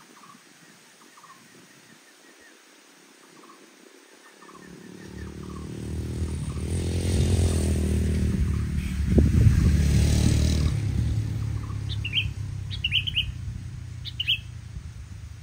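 A low droning sound with a shifting pitch swells up about a third of the way in, is loudest just after the middle, and fades away. Near the end come a few short, high chirps of sooty-headed bulbuls.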